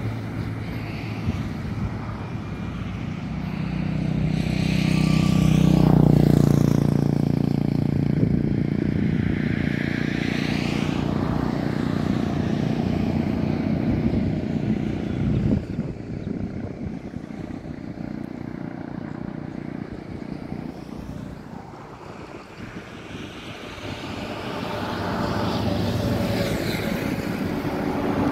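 Steady low rumble of a moving vehicle, swelling to its loudest about six seconds in, dipping around twenty-two seconds and rising again near the end.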